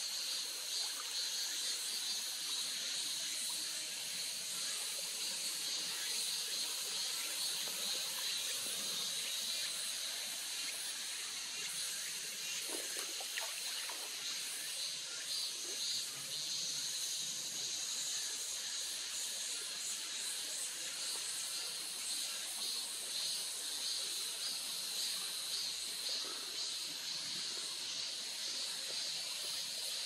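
Mountain stream ambience: a steady high hiss with water trickling over stones.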